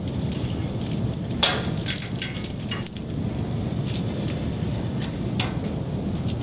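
Hands handling fiber-optic cable tails: a few light clicks and rustles over a steady low hum.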